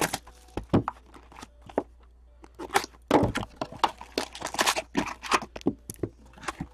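SPX hockey card box being opened by hand and its foil-wrapped card packs set down on a table: a run of quick cardboard rustles, taps and crinkles, busiest in the middle.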